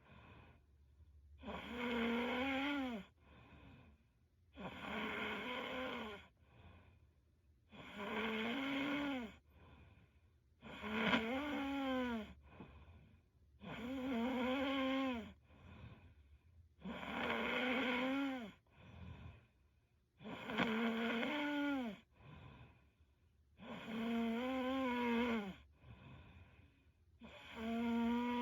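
A sleeping woman snoring: a pitched, droning snore on each breath in, about every three seconds, nine times, each one dropping in pitch as it ends, with a fainter breath out between snores.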